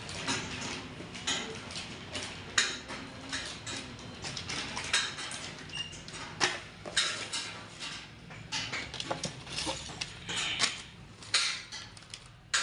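Irregular clinks and knocks of tractor engine parts and tools being handled in a workshop, a dozen or so sharp strikes scattered through.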